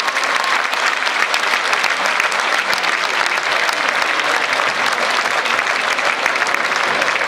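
Large audience applauding steadily, a dense, even clatter of many hands clapping.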